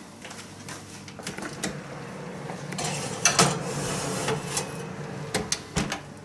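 A ceramic baking dish is slid into a wall oven onto the metal rack, with a clatter about three seconds in. The oven door is then shut and a control button pressed, giving a few sharp clicks near the end.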